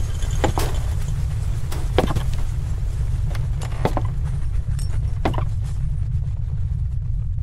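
Slow footsteps, four about a second and a half apart, over a deep steady rumbling drone.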